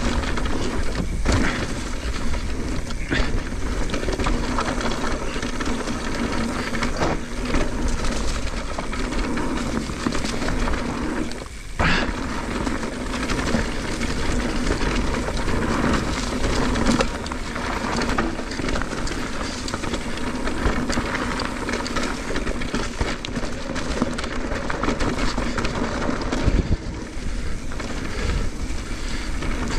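Wind rushing over an action camera on a mountain bike riding a dirt flow trail, with a steady low rumble of tyres on dirt. A few sharp knocks come as the bike goes over bumps, one about 12 seconds in.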